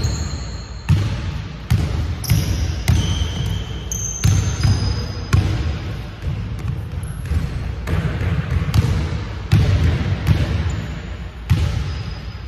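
Basketball bouncing on a hardwood gym floor: irregular thuds about once a second, each ringing on in the big hall. Short high sneaker squeaks come now and then.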